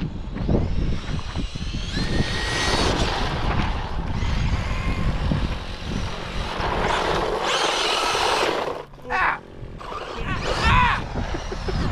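Radio-controlled car being driven hard, its motor whine rising and falling with the throttle, with a brief lull about nine seconds in.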